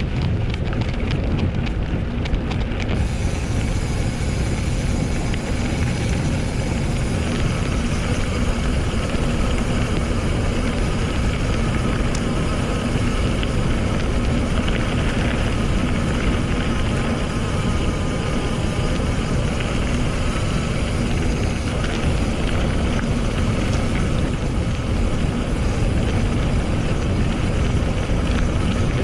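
Wind rushing over an action camera's microphone on a mountain bike ride, with tyres rolling on rough trail and the bike giving many small knocks and rattles.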